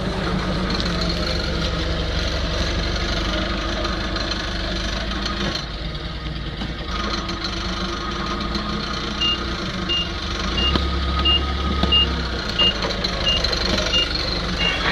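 Forklift engine running steadily; about two-thirds of the way through its reversing alarm starts, a short high beep repeating about three times every two seconds.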